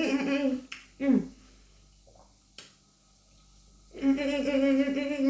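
A person's voice humming or vocalising in long held tones, breaking off about half a second in and picking up again near the end. In between there is a short falling tone and a single click.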